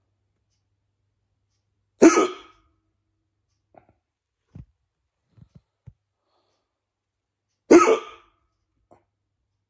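A person hiccuping twice, each a sudden loud hic about six seconds apart, during a bout of bad hiccups.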